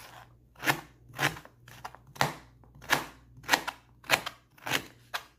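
Kitchen knife slicing through white radish (daikon) and striking a plastic cutting board: a run of about seven sharp chops at an even pace, roughly one every half second or so.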